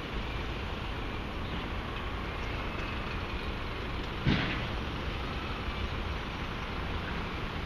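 Steady city street noise, mostly passing traffic, with a single sharp bang about four seconds in.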